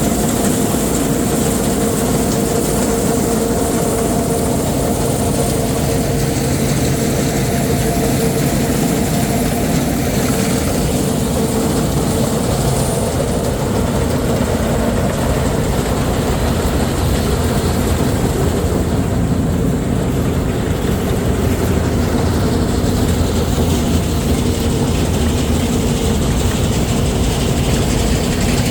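Harvest machinery running steadily under load: a heavy engine with a constant mechanical hum and rattle, holding an even pitch throughout.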